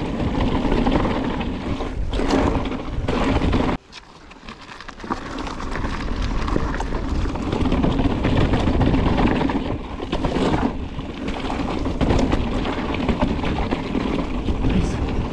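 Scott Genius full-suspension mountain bike ridden fast on a dirt singletrack: tyres rolling over the rough trail, frame and drivetrain rattling, and wind rumbling on the helmet camera's microphone. About four seconds in the noise cuts out abruptly, then builds back up as the bike gathers speed.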